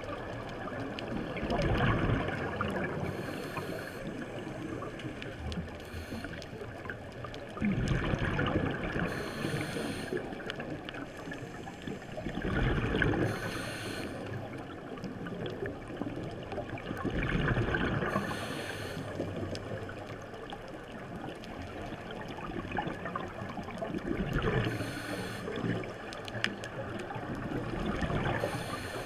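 Scuba diver's exhaled bubbles from a regulator, heard underwater: a bubbling rush that swells six times, about every five seconds, over a steady wash of water noise.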